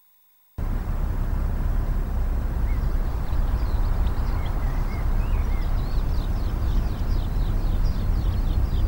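Outdoor field ambience that cuts in suddenly about half a second in: a steady low rumble of wind on the microphone, with many small birds chirping and twittering over it from about three seconds in, growing busier toward the end.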